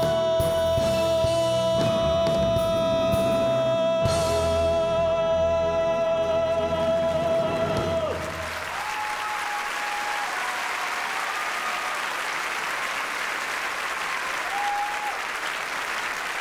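A male singer and a theatre orchestra hold the final note of a Broadway ballad, which breaks off about eight seconds in. The audience then bursts into loud, steady applause and cheering.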